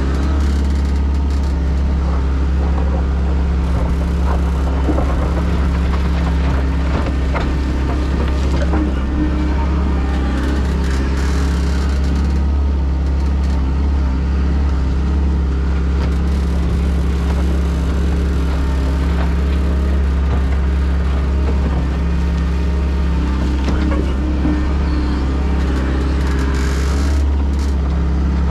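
Doosan DX140LC excavator's diesel engine running steadily under working load, a constant low drone. At times the Engcon tiltrotator bucket scrapes across the wet clay trench floor as it levels it.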